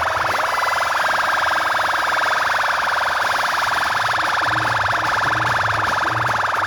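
Electronic siren-style buzz blasted through a DJ sound system: a loud, steady, harsh tone with a very fast pulse, held throughout. Short low bass thumps repeat under it in the second half.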